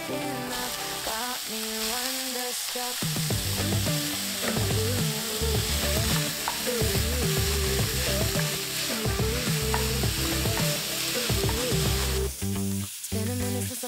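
Chopped onion and raw ground beef frying in a ceramic-coated frying pan, sizzling steadily while a wooden spatula stirs them; the sizzle drops away about twelve seconds in. Background music plays underneath.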